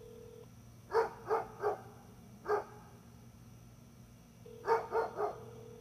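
Dog barking: three quick barks, a single bark, then three more quick barks near the end.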